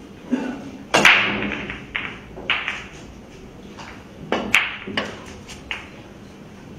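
Sharp clicks and knocks of pool balls during a shot: the cue tip striking the cue ball and the balls clacking and thudding off the cushions. There are about seven separate hits, the loudest a sharp crack about a second in that rings on briefly, and a quick pair of clacks about four and a half seconds in.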